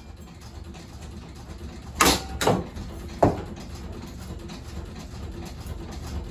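A damaged, wobbling ceiling fan running with a low steady hum, broken by three loud bangs: two close together about two seconds in and a third about a second later.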